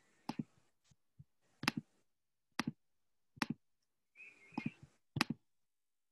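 Five sharp, short clicks at uneven intervals, with a brief high squeak just before the last one.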